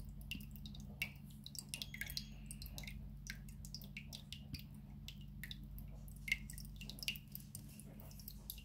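Ceramic cat water fountain running: water trickling and dripping from its spouts into the ceramic basin in many small irregular drips. A faint steady low hum sits underneath.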